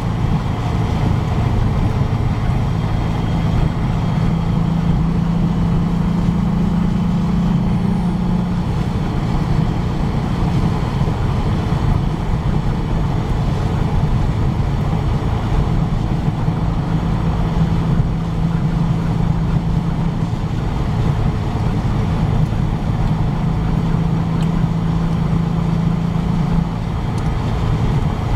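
1966 Porsche 912's air-cooled flat-four engine running steadily under load while the car cruises, heard from inside the cabin. The engine drone grows stronger for a few seconds about five seconds in and again from about sixteen seconds in, easing off near the end.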